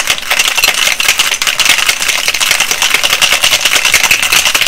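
Ice rattling rapidly and loudly inside a metal cocktail shaker being shaken hard to chill the drink.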